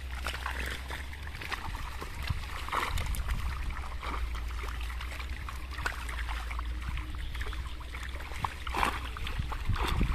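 Fish leaping and flopping in shallow, muddy pond water, making many irregular splashes and slaps. The splashes are louder around three seconds in and again near the end, over a steady low rumble.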